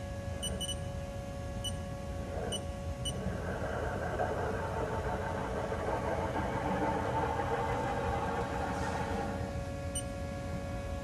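Haas TL-3 CNC lathe running with a steady multi-tone machine whine over a low rumble. A rushing noise rises about three seconds in and stops suddenly near the end. A few short, high ticks or beeps come near the start and again near the end.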